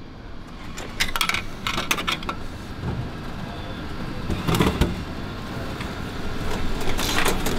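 Refrigerated food vending machine dispensing a packaged meal: a run of mechanical clicks and clunks, then a dull thump about halfway through. Near the end there are more clicks as the plastic pick-up flap is pushed open.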